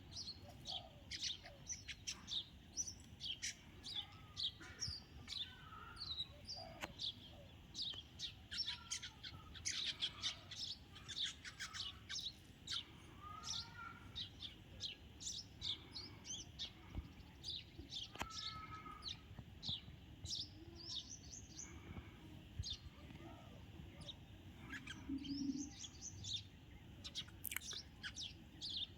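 Sparrows chirping, a steady stream of many short overlapping chirps.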